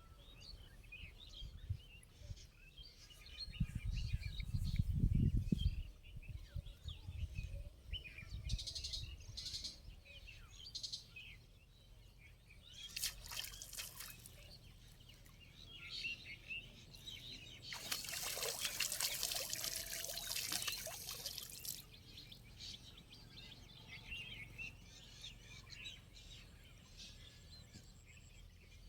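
Small birds chirping on and off, with water splashing and pouring in two bursts: a short one about halfway through and a longer one of about four seconds a little later. A low rumble sounds early on for about two seconds.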